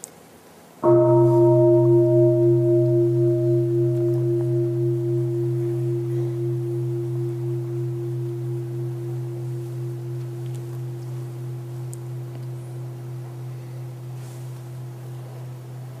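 A large meditation bell struck once about a second in, giving a low hum with brighter higher tones. The higher tones die away within a few seconds, while the low hum fades slowly with an even wavering pulse and is still sounding at the end.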